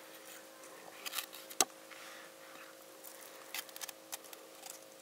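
Scattered light clicks and knocks of cooking utensils, the sharpest about one and a half seconds in, over a faint steady hum.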